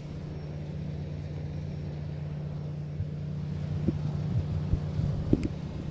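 Low, steady drone of a large fishing ship's engine as the vessel passes close by under way, with a few brief thumps near the end.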